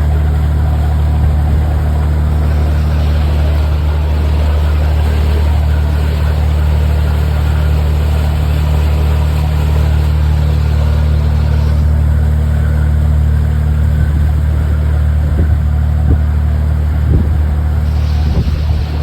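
A boat's engine running steadily at an even speed, with a deep, constant hum.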